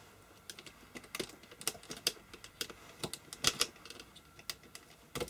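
Irregular light clicks and taps of plastic: the multimeter's plastic case and circuit board being handled while the board's retaining tabs are worked loose.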